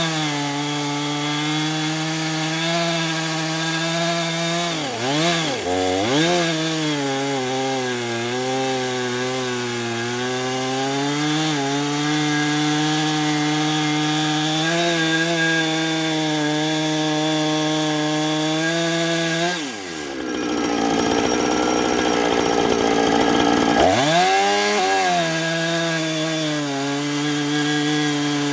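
Husqvarna 455 Rancher two-stroke chainsaw running at high revs while ripping a log lengthwise in a chainsaw mill. Its pitch sags and recovers briefly about five seconds in, and near the end it drops into a rougher, lower sound for a few seconds before climbing back.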